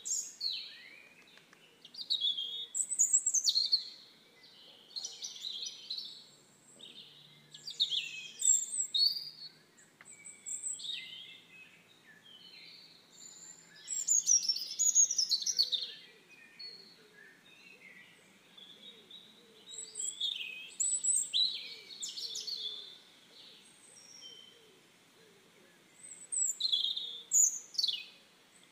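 Small songbirds chirping and singing in short, quick phrases that come every few seconds.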